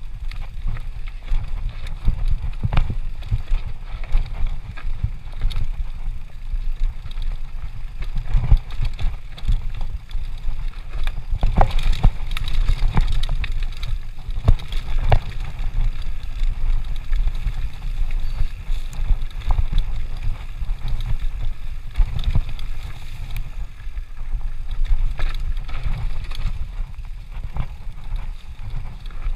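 Mountain bike rolling down a dirt singletrack: a steady low rumble of wind on the microphone and tyres on dirt, with frequent rattles and knocks from the bike over the rough trail.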